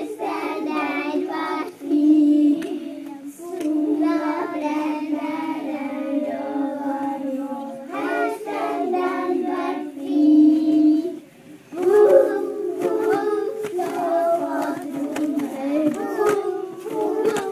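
A group of young children singing a song together, with a short break about eleven seconds in before they carry on.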